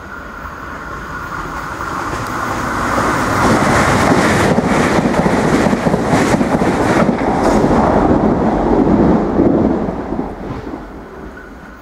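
Irish Rail 22000 class diesel multiple unit passing through the station at speed: its engine and wheel noise builds as it approaches, stays loud for about six seconds with a few sharp clicks from the wheels as it goes by, then fades away.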